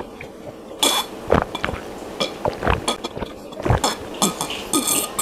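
A person gulping water from a small plastic mineral-water bottle, a run of swallows coming irregularly about every half second.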